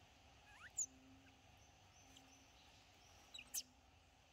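Quiet outdoor background broken by two brief, high, quickly rising chirps: one just under a second in and another about three and a half seconds in.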